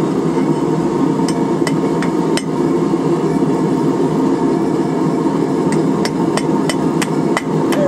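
Hand hammer striking a red-hot steel wrench on the horn of an anvil, bending it round. About four blows come in the first couple of seconds, then a pause, then a quicker run of about six near the end, over a steady loud rushing noise.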